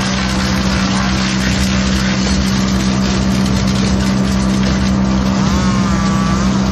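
Caravaggi BIO230 T PTO-driven branch shredder and its tractor running steadily with the hopper empty: the rotor spinning with no load, with a constant low hum.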